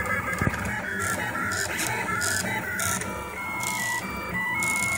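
Rostock MAX delta 3D printer's stepper motors whining in tones that jump from pitch to pitch as the print head darts about, mid-print at a 200% speed multiplier.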